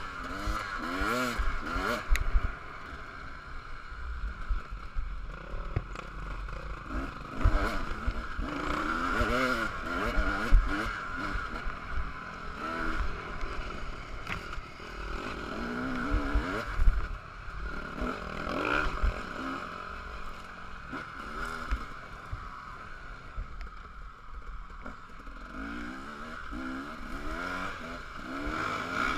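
KTM 300 two-stroke dirt bike engine heard from on board, revving up and down over and over as the throttle is worked on the trail. A heavy wind rumble and scattered knocks and clatter from the rough ground run under it.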